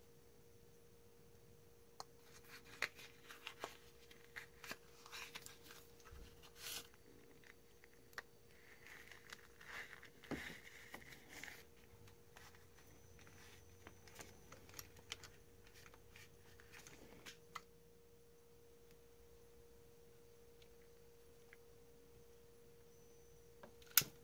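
Faint handling noise: soft clicks and rustles of wires and heat-shrink tubing worked by hand, over a faint steady hum, with a sharper knock near the end.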